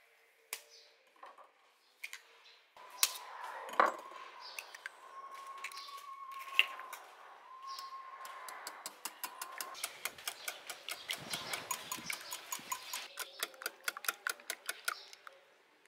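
An egg shell tapped with a kitchen knife and cracked into a glass bowl, then a wire whisk beating eggs in the glass bowl, clicking against the glass about five times a second.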